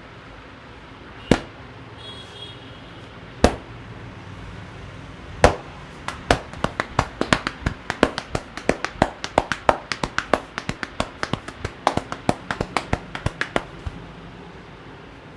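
Hand slaps of a massage striking the body: three single sharp slaps about two seconds apart, then a fast run of slaps, about four a second, for roughly eight seconds.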